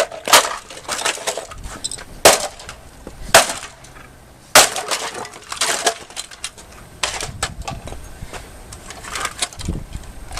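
An axe striking a plastic K-cup coffee maker, each blow a sharp crack with the clatter of the housing breaking apart. There are four heavy blows in the first five seconds, then lighter knocks and rattling of broken parts.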